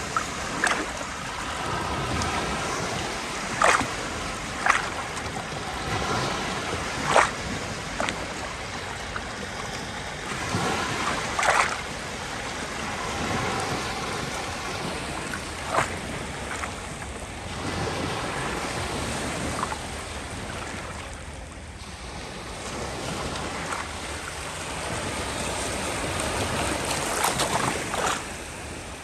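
Sea surf: waves washing in and ebbing away in slow surges, with a handful of short, sharp cracks scattered through.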